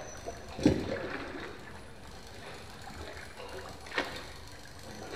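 Canal water splashing and gurgling around a boat gliding along, with sudden louder splashes about a second in, near four seconds and right at the end, the first the loudest.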